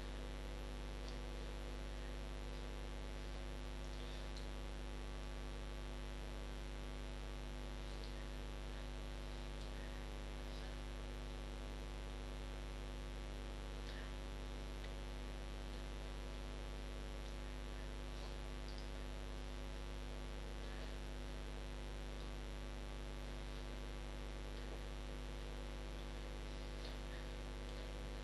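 Steady electrical mains hum, with a few faint scattered ticks.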